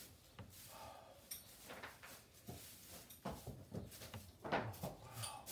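Horses moving about in straw-bedded barn stalls: scattered soft knocks and rustling, with a few louder knocks after about three seconds.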